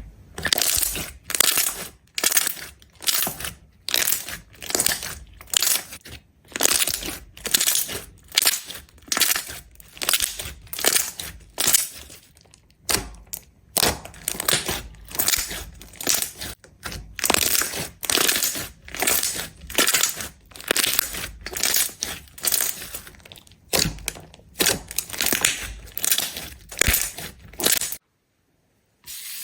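Crunchy slime being pressed and squeezed over and over, a crisp crackling crunch with each press, about one to two presses a second. It cuts off suddenly near the end.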